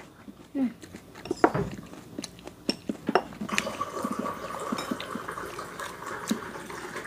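Scattered light clicks and clinks of chopsticks against ceramic bowls, plates and a pan during a meal.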